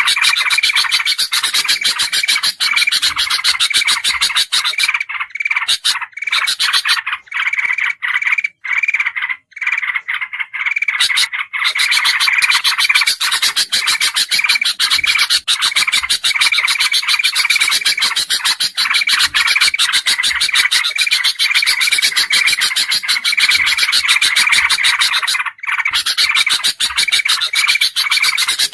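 Bird-lure recording of bulbuls calling together: kutilang emas, crested kutilang and trucukan (yellow-vented bulbul) calls layered into a dense, rapid chatter, with a loud chirp repeating about twice a second. The high chatter thins out and breaks off in patches about a third of the way in, and again for a moment near the end.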